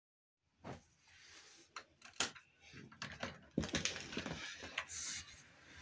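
Sharp clicks and knocks of a door's deadbolt and knob being worked as the door is unlocked and opened, with a short brushing hiss about five seconds in.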